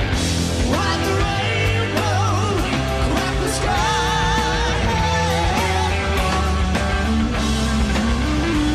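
Live hard-rock band playing, with a singer holding wavering notes over guitar, bass and drums.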